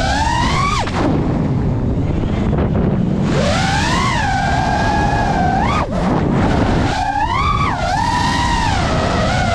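FPV racing quadcopter's brushless motors whining, the pitch rising and falling with throttle changes, over a steady rush of air noise. The whine drops away about a second in, comes back, and cuts out briefly again near six seconds as the throttle is chopped.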